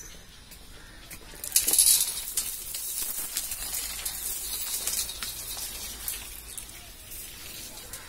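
Hanging metal-chain door curtain jingling and clinking as someone pushes through it. The rattle starts suddenly about a second and a half in, is loudest at first, and trails off over the next few seconds.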